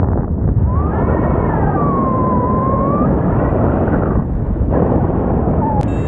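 Airflow rushing over the camera's microphone during a paraglider flight, a steady heavy buffeting. About a second in, a whistle-like tone dips and rises again for about two seconds.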